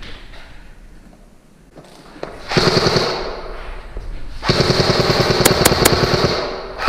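Scar-L airsoft electric rifle firing on full auto out of a window: a short burst about two and a half seconds in, then a longer burst of nearly two seconds, each a rapid even run of mechanical cracks.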